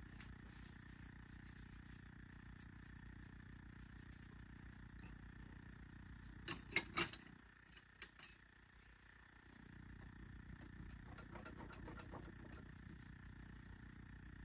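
A low, steady hum with a quick cluster of sharp clicks about six and a half seconds in and a single click a second later. The hum cuts out for about two seconds after the clicks and then returns, with a few faint ticks.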